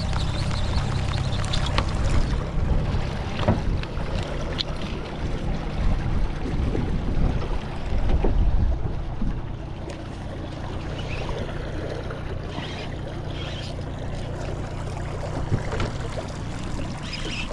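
Wind on the microphone and water washing against a small boat's hull, with a few scattered knocks.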